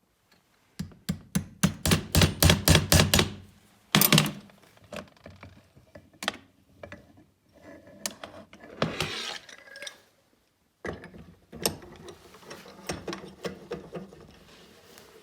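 Steel bench vise being worked by hand: a fast run of metallic clicks, about five a second, for a couple of seconds, then a heavy clack and scattered clicks and a scrape.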